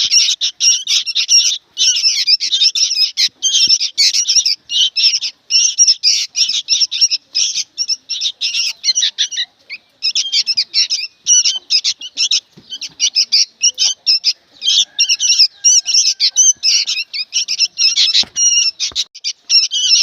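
Young sooty-headed bulbuls (kutilang) calling noisily: rapid, high-pitched calls in near-continuous runs, with a couple of brief breaks.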